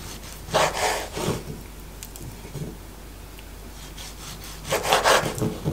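Kitchen knife slicing through a raw salmon fillet and onto a wooden cutting board: two slicing strokes about four seconds apart.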